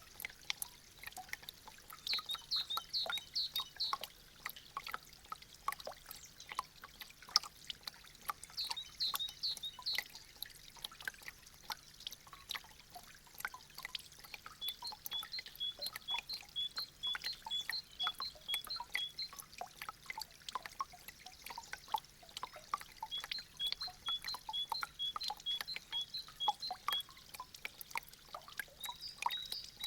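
Meltwater dripping from icicles: many irregular drops falling and trickling. Runs of quick, evenly spaced high chirps come and go several times.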